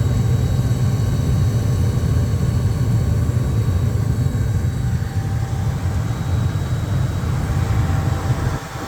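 Gas furnace running: a steady low rumble from the burners and blower, with a faint high whine. Just before the end the level drops suddenly and the rumble gives way to a quieter steady hum.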